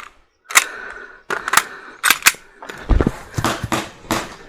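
Airsoft gun shots: about ten sharp cracks at irregular intervals, with a heavier thump about three seconds in.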